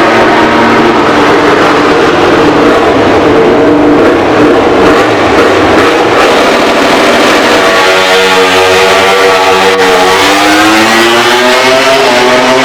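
Loud MotoGP race-motorcycle engines revving and accelerating at full throttle. The pitch falls at first, holds in a rougher, noisier stretch, then climbs again in the last few seconds.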